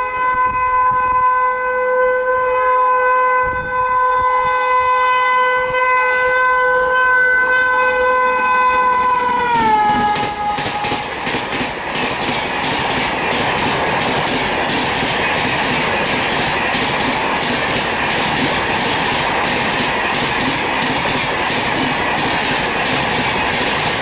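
WAP7 electric locomotive's horn held as a long chord of several steady tones, dropping in pitch as the locomotive passes about ten seconds in. Then the LHB coaches pass at speed with a rapid clickety-clack of wheels over rail joints and a steady rushing noise.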